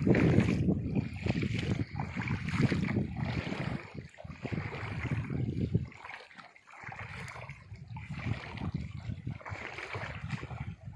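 Feet wading through ankle-deep stream water, splashing unevenly step by step, with wind buffeting the microphone. It is louder in the first half and eases off after about six seconds.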